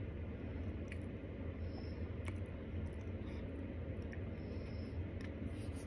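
Mouthful of raw starch being chewed, giving a few short crunching clicks, over a steady low hum.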